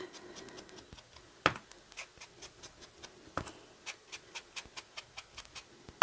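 Foam ink blending tool dabbed over and over on an ink pad and against the edge of a card: faint, irregular soft taps, a few a second, with a sharper tap about a second and a half in and another a little past three seconds.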